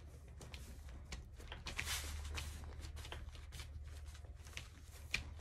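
Hands pressing and rubbing over fabric stretched on chicken wire: soft rustling and scratching with many small ticks, over a low steady hum.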